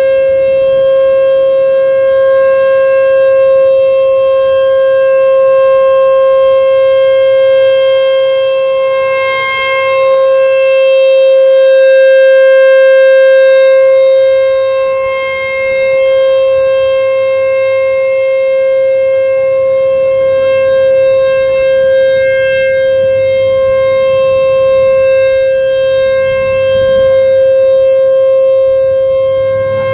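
American Signal T-128 rotating outdoor warning siren sounding a steady alert tone at full speed, one constant pitch with no rise or fall. It gets louder for a few seconds near the middle, then eases back.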